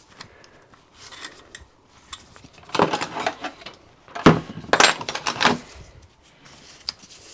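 Metal hand tools clinking and clattering on a workbench as a spanner is picked up and put to a nut on the engine block, in a few short bursts, the loudest a single sharp knock about four seconds in.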